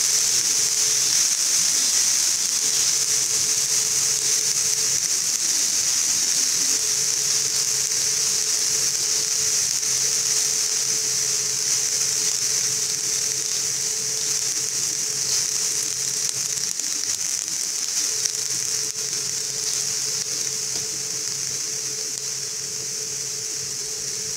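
Minced garlic sizzling in hot oil in a nonstick frying pan: a steady hiss that eases slightly toward the end. A faint low hum runs underneath and drops out briefly a few times.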